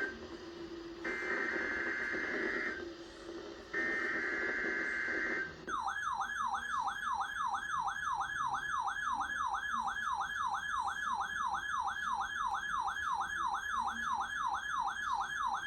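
NOAA Weather Radio SAME header data tones: three screeching bursts of about a second and a half each. From about six seconds in, a weather alert radio's alarm siren warbles up and down about three times a second, set off by the required weekly test signal.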